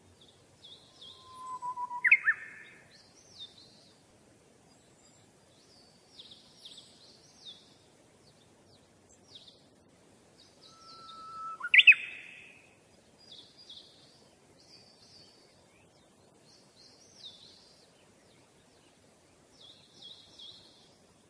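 Birdsong: many short, high chirps repeated throughout, with two loud whistled notes, about two seconds in and again near twelve seconds, that hold a low note and then sweep sharply upward.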